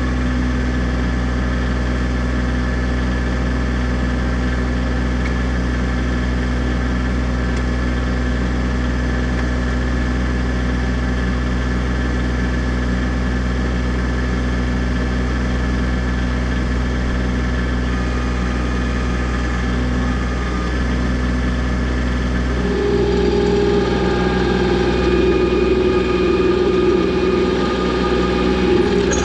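Kubota B2650 tractor's three-cylinder diesel engine running steadily. About 23 seconds in it gets louder and a higher whine joins in as the BH77 backhoe's hydraulics come under load.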